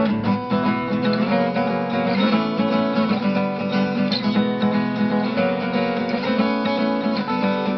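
Steel-string acoustic guitar played solo, an instrumental passage of chords with no voice.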